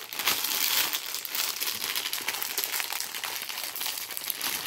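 Clear plastic packaging crinkling and rustling continuously as a plush toy is handled and unwrapped.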